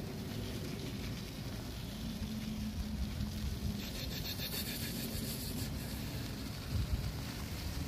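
Steady rumbling wind and rubbing noise on a handheld phone microphone while cycling, with a faint low hum that comes and goes.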